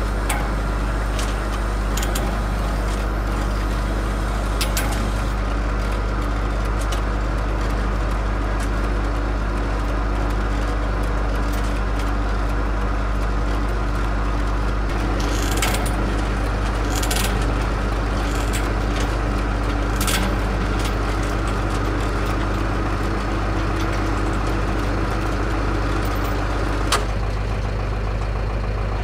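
Heavy mobile crane's diesel engine running steadily under load while it lowers a 34-ton steel bridge deck, with scattered sharp metallic clicks and knocks. Part of the engine note drops out near the end.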